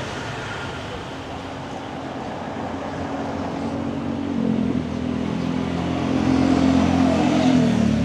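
A passing road vehicle's engine, growing louder over the second half as it approaches and dropping in pitch near the end as it goes by.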